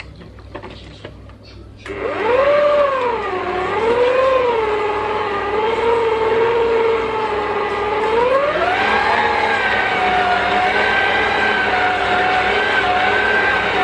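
Electric stand mixer switched on about two seconds in, its motor whining as the beater churns stiff cookie dough. The whine wavers up and down in pitch as the load changes, then rises and holds higher about eight seconds in.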